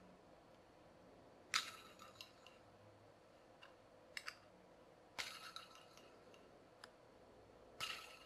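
A handful of sharp, ringing clinks, spaced irregularly a second or more apart, as a hand-built LED POV fidget spinner kit is flicked round by hand on its 608 bearing, which is not yet soldered in place.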